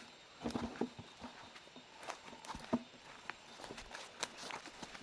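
Footsteps of someone walking on a slippery forest trail: irregular scuffs and knocks of feet on wet ground and debris.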